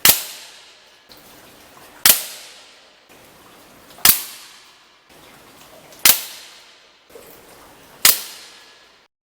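Hatsan AT44 .177 PCP air rifle firing five shots about two seconds apart, each a sharp crack with a short ringing tail: one five-shot string.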